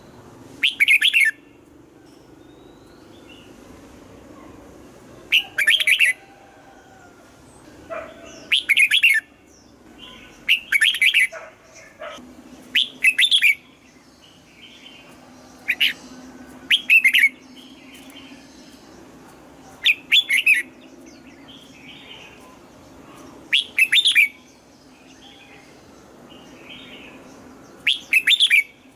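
Red-whiskered bulbul singing: short, loud song phrases repeated about every two to four seconds, a dozen or so in all.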